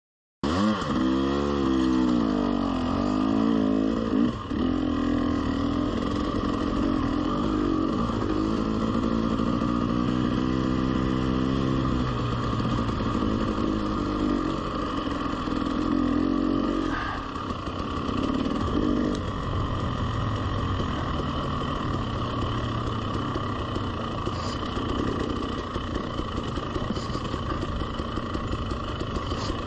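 Two-stroke 300cc enduro dirt bike engine running under way, its revs rising and falling through the first dozen seconds and then holding steadier, with wind and tyre noise on the trail. The sound cuts in abruptly about half a second in.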